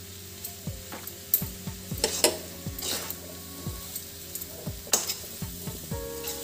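A spoon stirring and scraping spiced potato and pea samosa filling in a kadhai, knocking against the pan a few times a second, over a faint sizzle as the filling is roasted on the flame.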